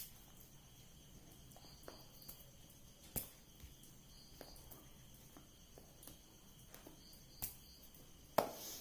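Faint, steady, high-pitched insect chirring in the background, broken by a few sharp knocks: one about three seconds in, one about seven and a half seconds in, and the loudest near the end.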